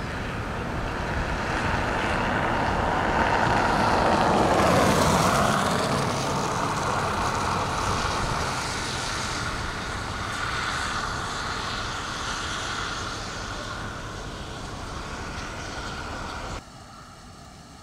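Vehicle driving on a wet road, a steady hiss of tyres that swells to its loudest about four to five seconds in and then slowly fades. It cuts off abruptly near the end.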